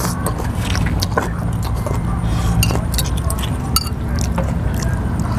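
Metal spoons and forks clinking against glass bowls, with the slurping of rice noodles in thin broth. A steady low rumble runs underneath.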